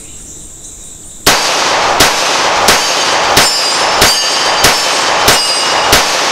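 Nighthawk Custom Fire Hawk .45 ACP 1911 pistol with a single-port compensator fired eight times in a steady string, about one and a half shots a second, starting about a second in. Each loud shot is followed by a short metallic ring.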